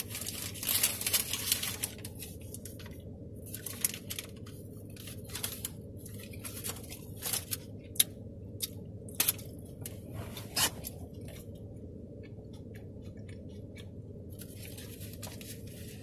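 Paper sandwich wrapper and paper bag crinkling and rustling in irregular bursts as they are handled, over a steady low hum.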